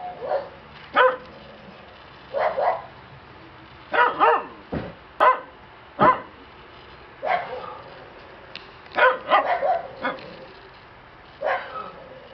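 Shiba Inu puppies barking: about a dozen short, high-pitched barks and yips at irregular intervals, some coming in quick runs of two or three.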